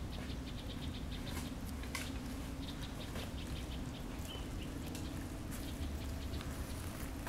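Outdoor background: trains of rapid, high-pitched ticks and a short chirp about four seconds in from small animals, over a steady low hum.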